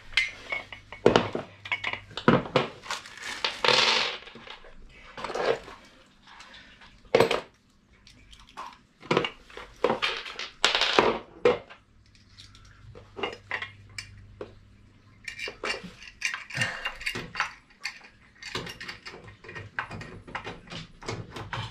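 Metal parts clinking and knocking as castor wheels are bolted to the base of a steel tool chest: scattered sharp clinks from bolts, nuts and tools, with runs of quick clicks in the second half.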